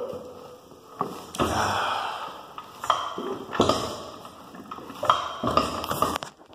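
A man breathing hard in noisy gasps and exhales, about one every second or so, from the burn of a hot pepper he has just eaten. A few light knocks come in between.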